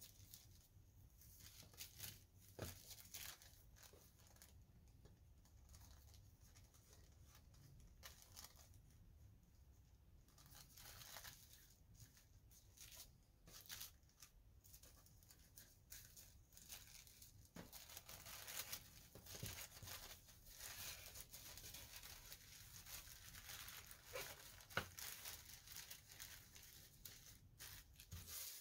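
Tissue paper crinkling faintly as it is folded over and pressed flat by hand: irregular rustles with a few sharper crackles, busier in the second half.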